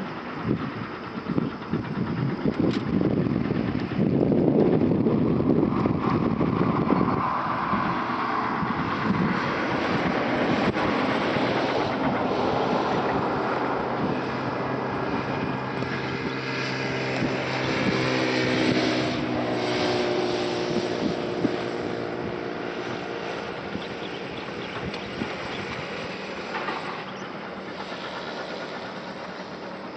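A motor vehicle's engine running as a steady hum, louder early on and fading toward the end.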